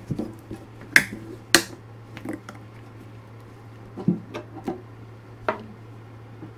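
Sharp clicks and light knocks as a white box-shaped container is handled and turned over in gloved hands while epoxy is about to be mixed. The two loudest clicks come about a second in, half a second apart, with several more near the end, over a steady low hum.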